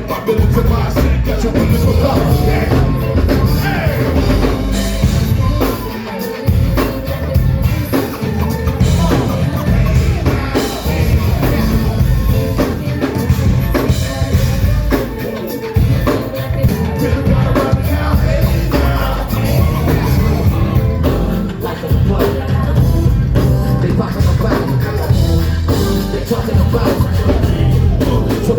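Live band playing hip hop with a rock drum kit and heavy bass, with a voice singing over it.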